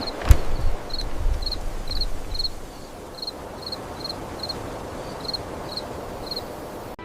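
Crickets chirping, short high chirps about two a second, over a steady outdoor ambience with a low rumble. A single sharp knock comes right near the start.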